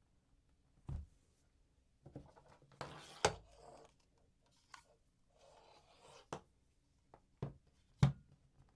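Close-up handling sounds: a few sharp taps and knocks on a hard surface, with soft rubbing and rustling between them. The loudest tap comes near the end.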